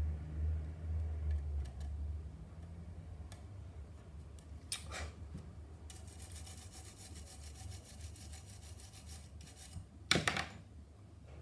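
A hand tool scraping over the plastic body shell of a 1:24 scale model car: a fast run of short, even strokes for about four seconds, with single louder scrapes about halfway through and near the end, the last one the loudest. A low rumble fades out over the first two seconds.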